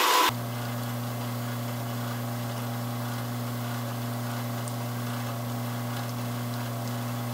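Espresso machine's pump humming steadily with a low, even tone while it pulls a shot into a mug. A brief loud burst of noise right at the start.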